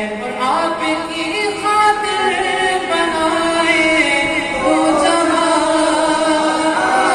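A man singing an Urdu naat (devotional poem in praise of the Prophet) into a microphone, the melody gliding between long held notes.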